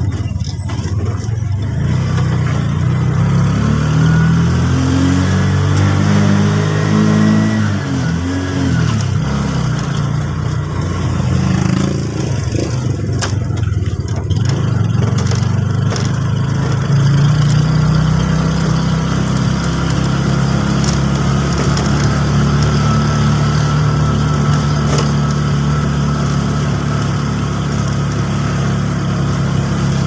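Small vehicle engine running while driving, likely a motor tricycle: its pitch climbs over the first several seconds, falls away about eight seconds in, then holds steady from about seventeen seconds, over road noise.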